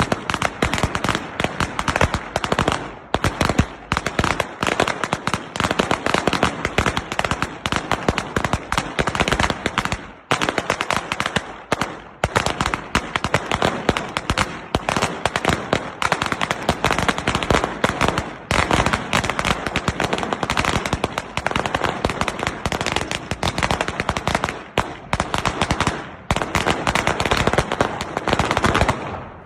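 A string of firecrackers going off in a rapid, continuous crackle of loud bangs, with a few brief lulls, stopping just before the end.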